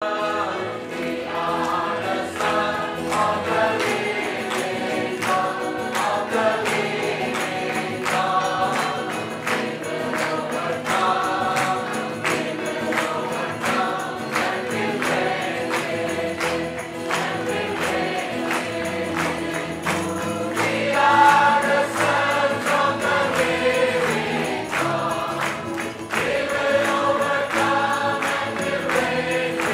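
Choir singing a gospel hymn with musical accompaniment.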